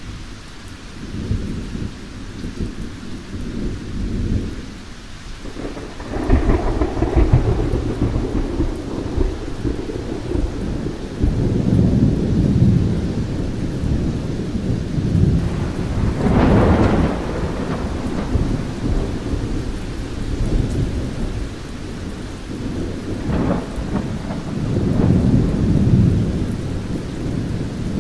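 Thunderstorm: rolling thunder rumbling over steady rain, with louder rolls about six seconds in, around sixteen seconds (the loudest) and near twenty-three seconds.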